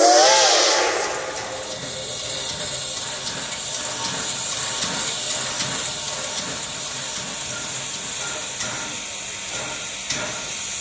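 Reading & Northern #425, a Baldwin steam locomotive: the tail of a steam whistle blast, several tones wavering together, dies away within the first second. Then comes a steady hiss of steam.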